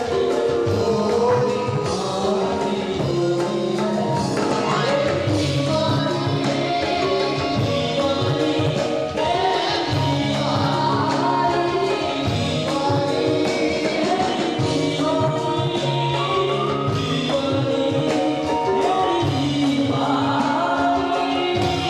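Live Sufi rock band playing: singing over electric guitar and keyboard, with a steady full-band sound.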